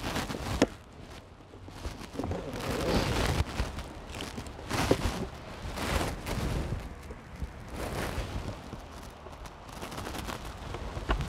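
A strap round a polystyrene beehive being unbuckled and pulled free, with a series of sharp clicks, knocks and scrapes, then the foam roof lifted off near the end.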